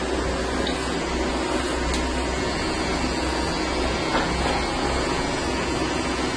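Electric hair clippers running steadily while shaving a head: a constant buzzing hum with hiss that never stops.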